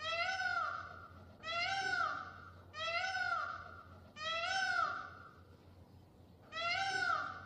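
Indian peacock calling five times, each call about a second long and rising then falling in pitch, with a longer pause before the last.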